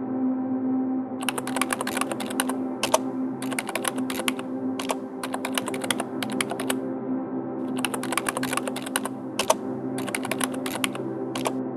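Rapid computer-keyboard typing in bursts of clicks separated by short pauses, over a steady ambient music drone.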